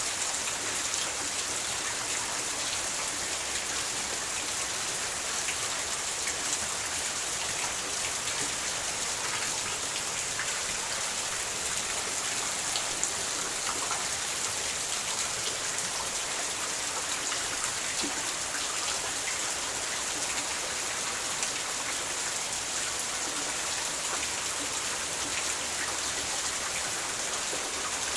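Steady rain falling, an even hiss with many fine drop ticks and no let-up.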